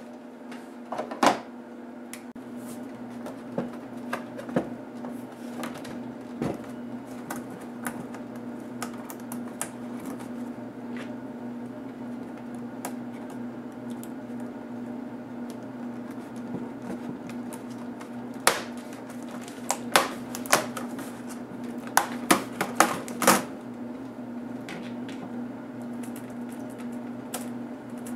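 Sharp plastic clicks and snaps as the hinge cover strip above an HP G71 laptop's keyboard is pried loose with a plastic pry tool, with one click about a second in and a quick run of clicks in the second half. A steady low hum runs underneath.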